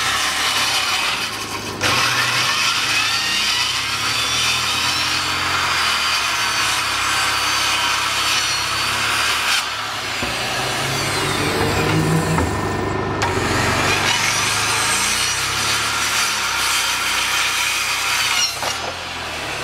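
Corded circular saw cutting through plywood, running loud and steady through the cuts with a few short dips as the blade moves along the sheet.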